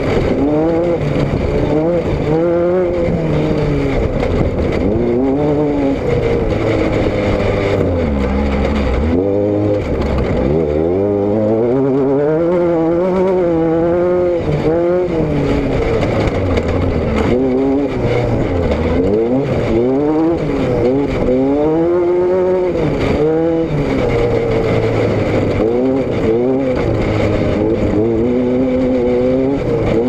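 A vehicle's engine and exhaust while driving, the engine note rising and falling every second or two as the throttle opens and closes. About nine seconds in it drops low and then climbs steadily again.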